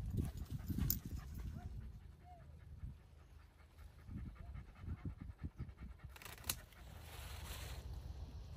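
A Spanish Water Dog panting close to the microphone, with wind rumbling on the mic. Near the end, a rustle and a sharp click.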